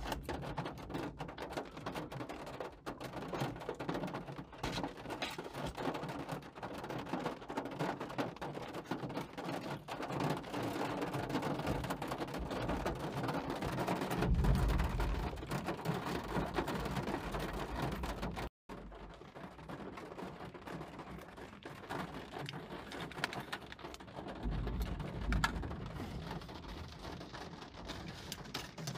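Rain pattering on a car's windshield and roof, heard from inside the car as a steady hiss full of small drop taps. A low rumble of thunder swells about halfway through, and a fainter one comes near the end.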